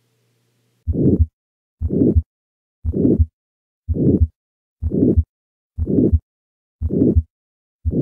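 Heart sounds heard through a stethoscope diaphragm at the second right intercostal space, starting about a second in and beating about once a second. Each beat carries a harsh crescendo-decrescendo systolic murmur, the sign of aortic stenosis.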